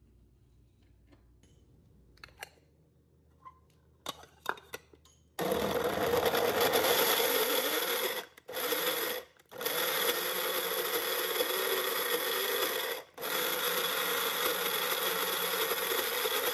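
A few light clicks and knocks, then a small electric grinder's motor runs loud and steady for about eleven seconds, stopping briefly three times, as it grinds whole cayenne peppers with olive oil into a paste.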